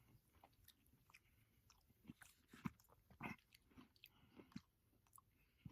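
Faint chewing: a person eating, with scattered soft mouth clicks, a few a little louder in the second half.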